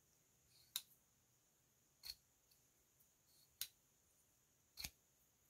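A-TAC Phantom frame-lock folding knife clicking four times, about once every second and a half, as its blade is worked on the flipper and snapped open and shut. The action is very stiff out of the box and will not deploy properly from the flipper.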